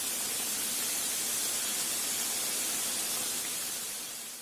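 Maida-pastry gujiya deep-frying in hot oil: a steady sizzle that fades out near the end.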